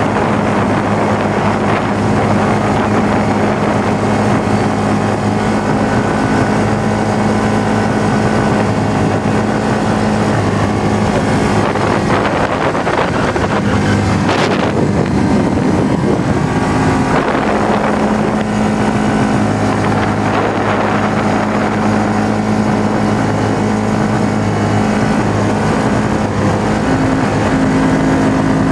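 Yamaha Rhino side-by-side's engine running steadily at speed on a gravel road, a constant drone with wind on the microphone. The engine note drops back briefly about halfway through, where a short whoosh passes.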